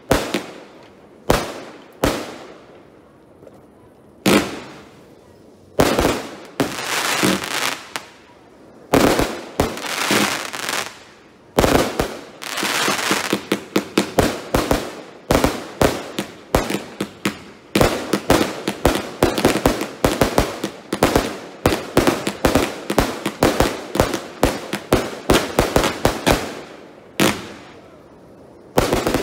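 F2-category aerial fireworks bursting in the sky: sharp bangs, a few spaced apart at first, then from about twelve seconds in a dense, rapid barrage of reports that eases off shortly before the end.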